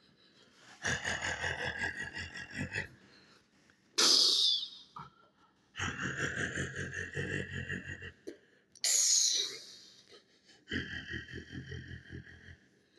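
A person making truck engine noises with the mouth: three rumbling, buzzing stretches of a second or two each, broken by two sudden loud hissing blasts.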